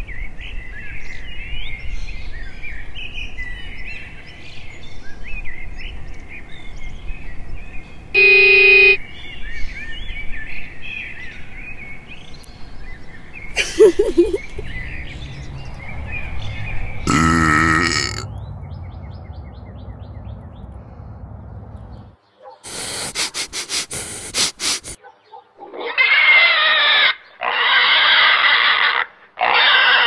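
Birds chirping over an outdoor background for about the first thirteen seconds, cut through by a short tone burst. Then comes a string of brief edited sound effects and clicks, ending in three loud voice-like bursts, each one to two seconds long.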